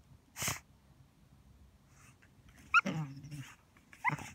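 Boxer-type dog vocalizing while it digs in sand: a short breathy burst about half a second in, then a whine that drops into a low grumble about three seconds in, and a short rising whine near the end.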